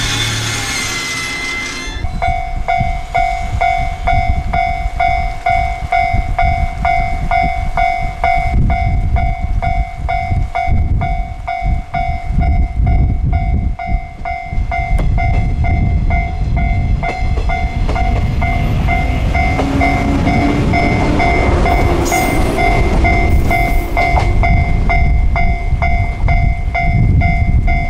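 Level crossing warning bell ringing in a rapid, evenly repeating two-tone ding, starting about two seconds in, over the low rumble of a Shinano Railway 115 series electric train running past.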